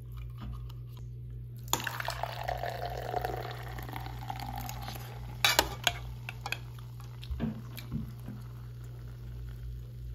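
Root beer poured from a can into a glass, splashing and fizzing as it foams up, with two sharp clicks about halfway through.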